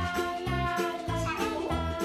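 Background music: a bouncy tune with a regular bass beat under a steady melody.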